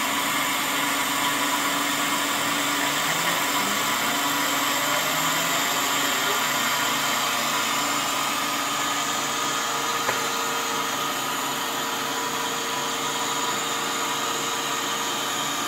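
Small CNC router's spindle running steadily at about 3,000 RPM, its end mill cutting around the outline of a plywood blank: an even machining noise with steady tones, and a single click about ten seconds in.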